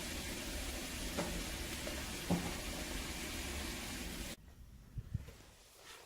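Wood fire in a Samjin fireplace stove burning at full heat, a steady hiss with a couple of sharp crackles; the fire is run at maximum to burn in the stove's heat-resistant paint. About four seconds in the hiss cuts off abruptly, leaving quiet with a few faint clicks.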